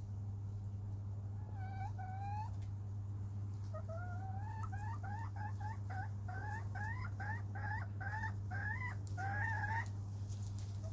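A chicken calling: two rising notes about two seconds in, then a quick run of short upward-sliding calls, about two to three a second, that stops near the end. A steady low hum runs underneath.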